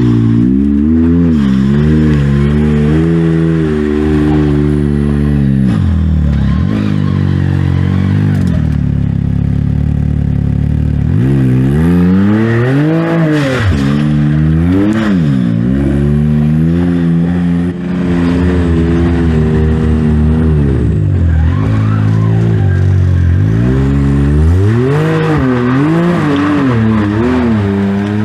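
Side-by-side UTV engine revving hard and letting off over and over as the machine works its way up a steep rocky trail obstacle, its pitch climbing and falling many times, with tyres scraping and clattering on rock.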